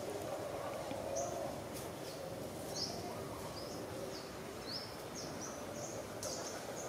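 A small bird chirping repeatedly in short, high chirps that slide in pitch, about one or two a second at an uneven pace, over a steady outdoor background hiss.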